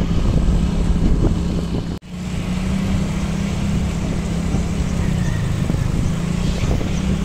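Motorcycle engine running at a steady speed while riding, a constant low hum with road noise. The sound drops out for an instant about two seconds in.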